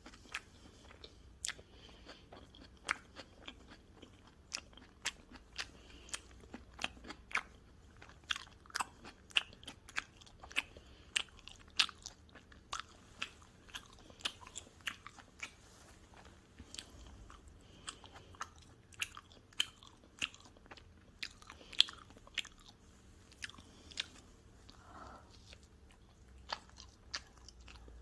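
Pizza being bitten and chewed, with frequent sharp crunches, one or two a second.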